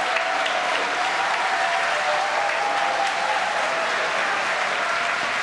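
Crowd applauding steadily, with a few voices cheering among the clapping.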